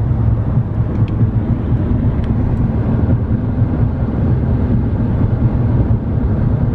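Steady road and engine rumble of a car driving at freeway speed, heard from inside the cabin.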